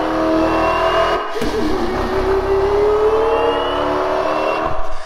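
Mouth imitation of a Dodge Challenger engine revving, voiced through a paper towel tube into a microphone. The pitch climbs, drops about a second in, then climbs again for a few seconds before breaking off near the end.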